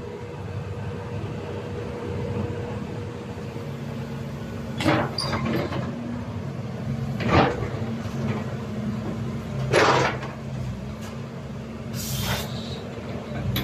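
CAT 320D crawler excavator's diesel engine running steadily while the machine works, with about four sharp metallic clanks spaced a couple of seconds apart from the digging gear, the last with a short hiss.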